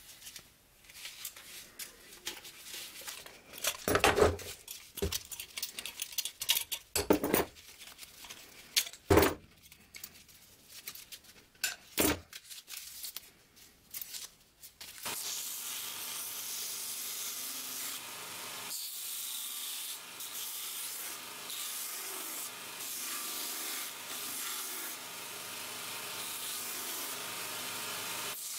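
Work on a handmade knife: a few loud knocks and irregular scraping, then from about halfway a steady sanding noise that keeps going.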